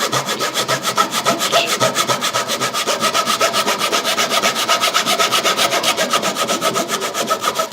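Small hand saw cutting through a clamped cricket ball, past the leather cover into the wound inner layers, with rapid, even back-and-forth strokes, several a second.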